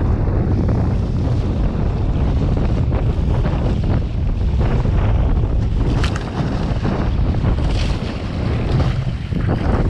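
Heavy wind buffeting on the microphone over the rush of water and spray along the hull of a Scow Moth dinghy sailing fast through chop. A few sharper splashes stand out about six seconds in and near the end.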